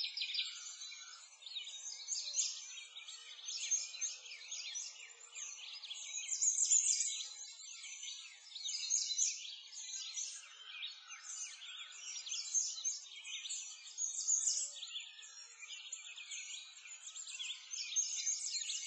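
Birdsong chorus: many small birds chirping and twittering, quick high chirps overlapping one another with no pause.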